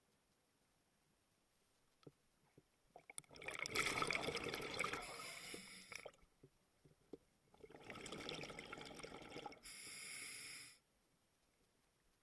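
A scuba diver breathing through a regulator underwater: a rush of bubbling exhaust bubbles from about three seconds in, then, after a short pause, a second, smoother rush of breath that stops suddenly about a second before the end.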